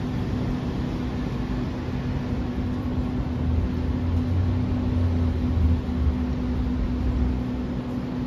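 A Sydney Trains Waratah double-deck electric train hums steadily while stopped at the platform, with a constant low tone. A deeper rumble swells for a few seconds in the middle.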